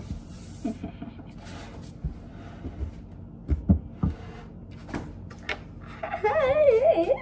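A few scattered soft knocks of a wooden-handled spatula bumping a mixing bowl as pretzel dough is stirred. A voice with a wavering pitch comes in near the end.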